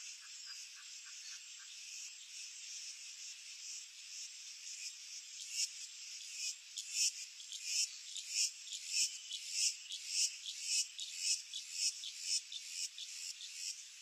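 A chorus of insects and frogs. A steady high insect drone runs throughout, with a fast pulsed, frog-like call in the first two seconds. From about halfway on comes a run of loud, sharp chirps at about two a second.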